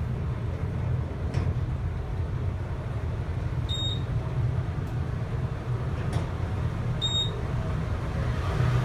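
OTIS Gen2 traction elevator in motion, heard inside the cab as a steady low rumble, with a short high beep twice, a few seconds apart. The running sound is rough for a new Series 7, which the rider takes as not sounding good.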